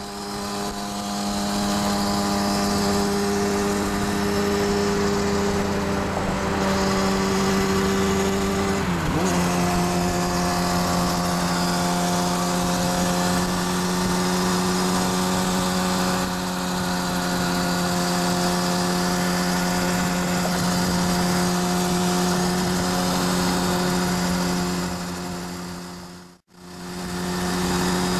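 2009 Kawasaki Ninja ZX-6R's inline-four engine running at a steady high pitch while cruising at freeway speed, over wind and road noise. The pitch dips briefly about nine seconds in, and the sound cuts out for a moment near the end.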